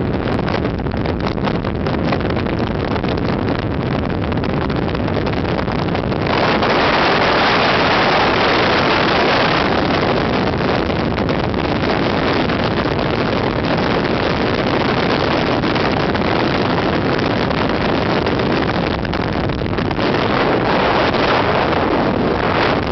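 Wind rush and road noise inside a car moving at highway speed: a loud, steady rushing that gets louder about six seconds in.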